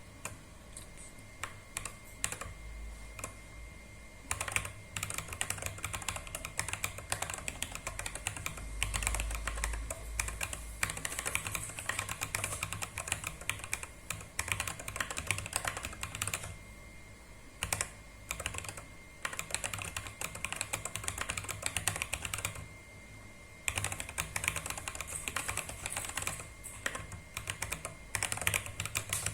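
Typing on the Micro Journal Rev. 2's compact 30-key mechanical keyboard: fast runs of key clicks, sparse for the first few seconds, with brief pauses a little past halfway and about three-quarters of the way through.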